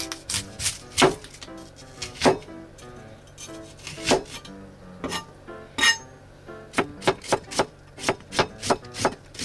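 Chef's knife thinly slicing an onion on a cutting board: sharp knocks of the blade through the onion onto the board, sparse at first, then quickening to a steady rhythm of about three cuts a second in the last few seconds.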